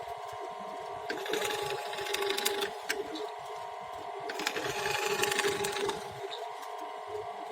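Small electric power tool running steadily, with two stretches of harsher, louder noise, about a second in and again around four and a half seconds in, as it works wood.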